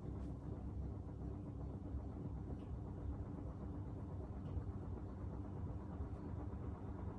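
Wing TAT-built Martec 48-inch ceiling fan from the early 1970s running at medium-high speed: a steady motor hum over a low rumble, with the bearing noise of an old, unbalanced fan.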